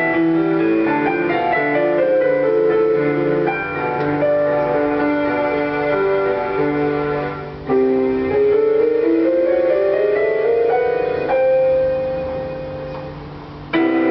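Solo piano playing a gentle piece of struck notes and chords. About halfway through it climbs in a rising run of notes. A chord is then held and fades away, and a new chord is struck near the end.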